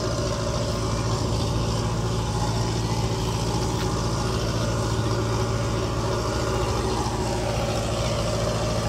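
Engine of an irrigation water pump running steadily at constant speed, pumping water up from the river: an even, unchanging low drone.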